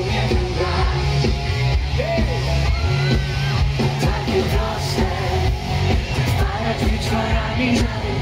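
Live pop-rock band playing with a male lead singer, amplified through a stage PA and heavy on bass, heard from the crowd.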